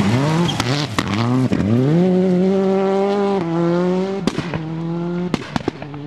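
Škoda Octavia rally car accelerating hard on gravel: the engine revs climb and drop back at each of about three upshifts. Several sharp cracks sound over it.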